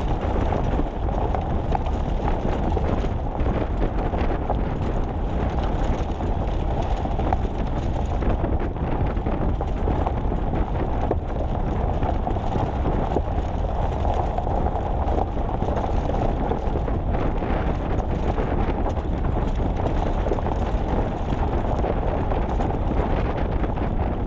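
A vehicle driving steadily along a gravel trail, its tyres crunching and rattling over loose gravel under a constant rumble of road and wind noise.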